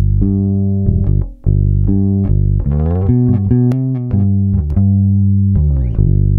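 Isolated electric bass guitar track played back through an Atlas Pro Audio Leviathan opto compressor: plucked notes held out one after another, with sliding notes about three seconds in.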